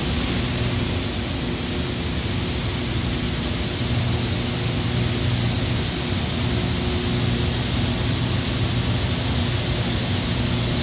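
Steel mill machinery running around glowing hot steel: a loud, steady rushing noise with a low hum of several faint tones underneath.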